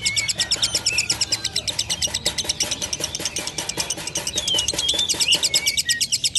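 Lovebird singing a long, unbroken chatter ('ngekek') of rapid, sharp notes, about ten a second, with a few short whistled glides over it.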